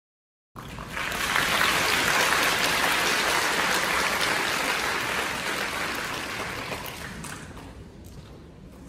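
Audience applause: it starts about half a second in, swells within a second, then slowly fades away.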